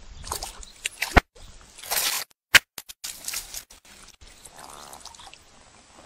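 Hooked fish thrashing at the water's surface, splashing in several bursts about half a second long, with a few sharp clicks in between.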